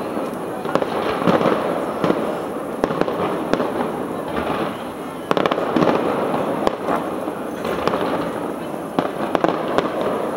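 Fireworks display: a dense, continuous barrage of shells bursting, with many sharp bangs at irregular intervals over a constant crackling rumble.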